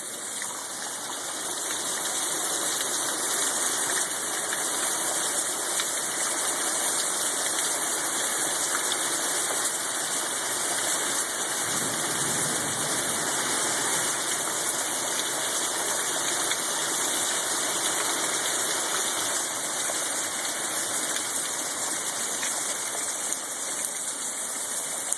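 Storm-force wind rushing in a steady, loud roar of noise, swelling a little now and then.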